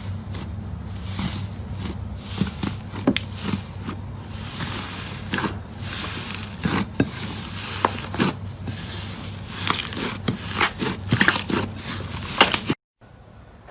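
Slime being squeezed and worked by hand, giving irregular sticky pops and crackles over a low steady hum. It cuts off abruptly about a second before the end.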